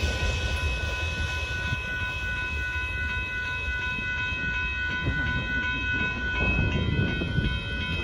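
Railroad grade-crossing warning bell ringing steadily over the low rumble of a freight train rolling away after its last car has cleared the crossing.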